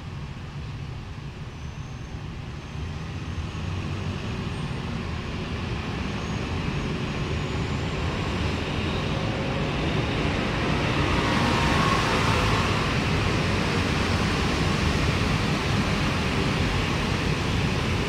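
Background road traffic: a steady rumbling noise that grows louder over the first dozen seconds, then holds.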